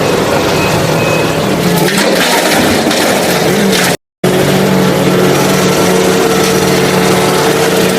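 Two short motor-vehicle engine sound clips cut one after the other, with a brief silence about four seconds in. The first is rougher and noisier; the second is a steady engine hum.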